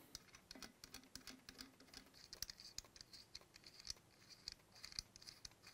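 Faint, irregular little clicks and scratches of a metal nut being unscrewed by hand from the threaded body of a mixer tap.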